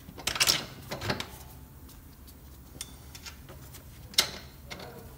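Light metallic clunks and clicks of a new alternator being worked into its aluminum mounting bracket and its bolts started by hand. The sharpest knocks come about half a second in, at about a second, and about four seconds in.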